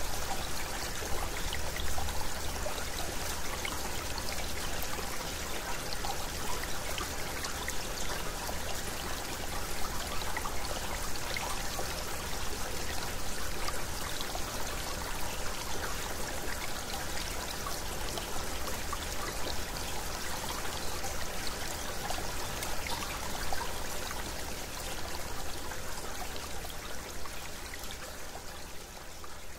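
Field recording of a little stream: a steady trickle of running water with many small splashes, slowly getting quieter near the end.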